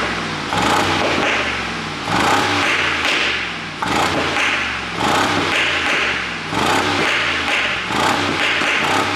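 2019 Mercedes-AMG G63's twin-turbo V8 blipped repeatedly, about one short rev every second and a half, each falling back with crackling pops from an exhaust 'pop sound' tune.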